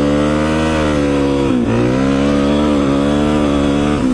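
Suzuki DR-Z400E single-cylinder four-stroke dirt bike engine running at a steady pace while riding. The revs dip briefly and pick back up about one and a half seconds in.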